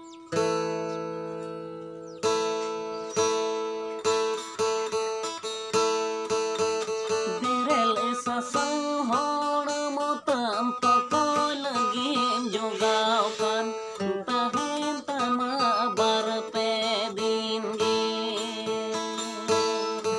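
Steel-string acoustic guitar strummed in slow, spaced chords that ring out, then from about seven seconds in a man sings a Santali lagre song over the strumming.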